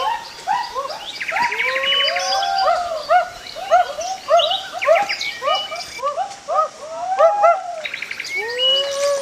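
Several birds chirping and calling at once: many short, arching notes overlapping throughout, with a few higher buzzy trills.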